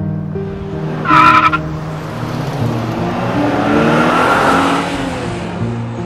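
Tires screeching in a skid, a sound effect laid over acoustic guitar music: a short loud high squeal about a second in, then a longer screech that swells and fades away.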